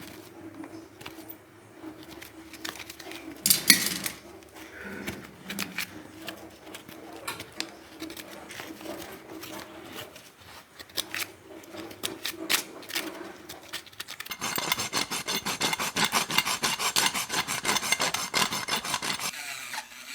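Scraping strokes on a horse's hoof over a faint steady hum, then, about three-quarters of the way in, an electric engraving tool grinding the hoof wall with a dense, rapid buzz for about five seconds before it cuts off, dressing out a hoof wall defect.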